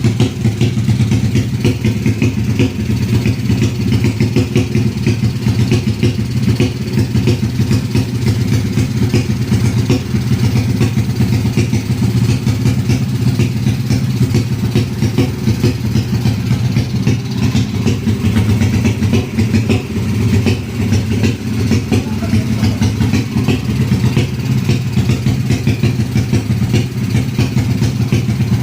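Honda Kharisma motorcycle's single-cylinder four-stroke engine, bored out to 200cc for drag racing, idling steadily with a rapid, even beat. It is running for the first time since the build and has not yet been tuned.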